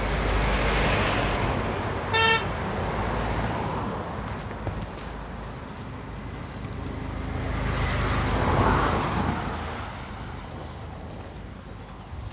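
Road traffic passing close by: a bus goes past with a swell of tyre and engine noise, a vehicle horn gives one short toot about two seconds in, and another vehicle passes around eight to nine seconds in.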